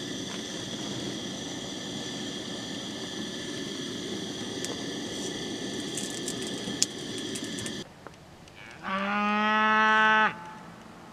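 Camp stove burner hissing steadily under a cast-iron skillet of bagels, with a few small taps, until it cuts off sharply about eight seconds in. Then a cow moos once, a loud, steady call lasting about a second and a half.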